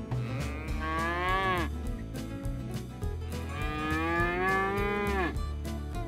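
Cattle mooing: two long moos about two seconds apart, each rising slightly in pitch and then dropping off at the end.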